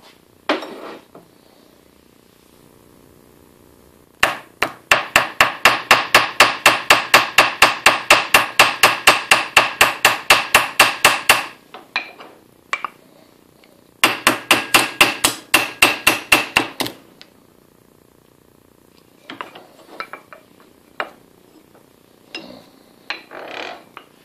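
Hammer striking a reciprocating saw blade clamped in a steel bench vise: a fast run of ringing metal blows, about four a second, for some seven seconds, then a shorter run after a brief pause, and a few scattered knocks near the end. The tough blade is not giving way.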